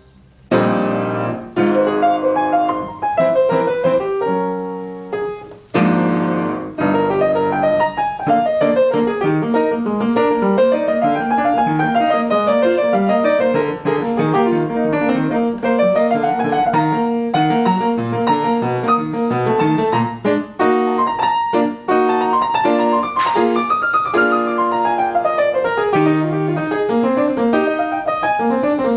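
Piano being played: a few struck chords with short breaks in the first six seconds or so, then steady rising-and-falling runs of notes over held lower notes.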